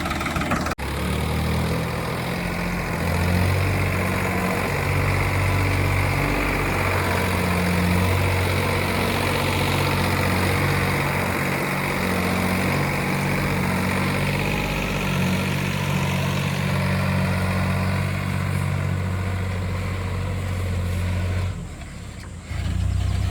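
Heavy diesel machinery engine running under varying load, its pitch stepping up and down. The sound cuts out briefly just under a second in and drops away near the end.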